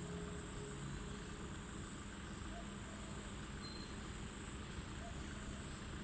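Faint outdoor background: a steady low rumble with a thin steady high whine over it. A held low tone of background music fades out about a second in, and there is one faint short high peep near the middle.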